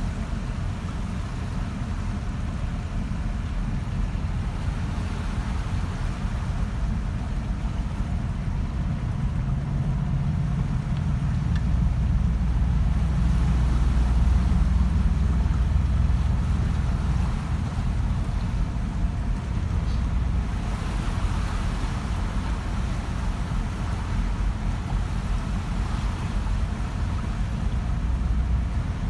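A car driving through floodwater: a steady low rumble of engine and tyres with a wash of water noise, growing louder about twelve seconds in and easing off a few seconds later.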